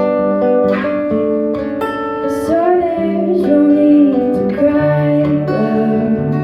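Acoustic guitar playing a song, its notes changing in steps, with a wordless sung line gliding over it through the middle.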